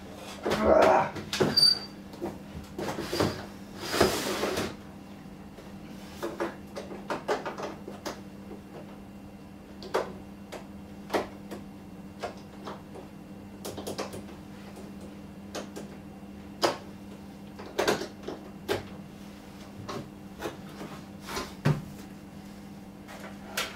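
Irregular knocks, clicks and scrapes from a heavy UPS battery pack being handled on a shelf, busiest in the first few seconds, over a low steady hum.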